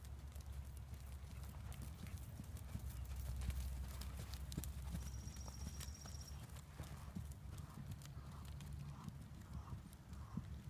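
Hoofbeats of a ridden grey horse moving at speed on arena sand footing.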